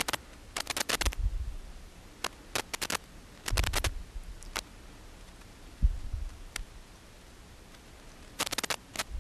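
Small clicks and light scrapes in a few short clusters, with some dull low knocks: a dial test indicator and its holder being adjusted by hand against a lathe spindle.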